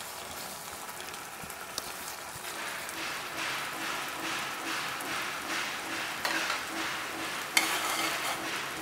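Thick prawn and pui-seed curry sizzling and bubbling in a non-stick pan, the crackling growing denser after a couple of seconds. About seven and a half seconds in, a metal spatula clicks against the pan as stirring begins.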